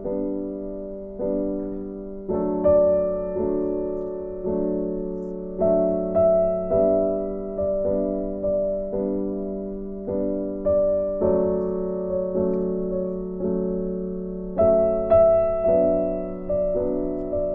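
Background piano music: a slow, gentle melody of struck notes, each ringing out and fading before the next.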